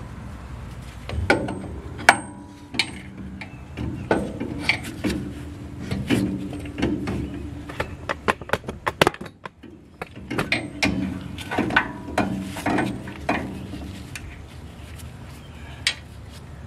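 Irregular metallic clanks, clicks and knocks of suspension parts and hand tools being worked while a lower control arm with a new coil spring is raised into a truck's front suspension, over a steady low hum.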